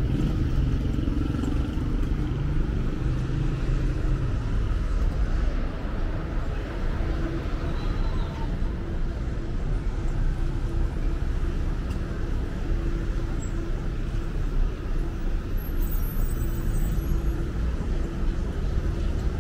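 City street ambience: steady traffic noise from cars driving along the boulevard, with a low engine hum throughout.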